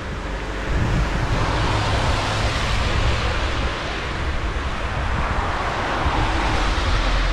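Car tyres hissing on a wet road, swelling about a second in and holding for several seconds, with wind rumbling on the microphone.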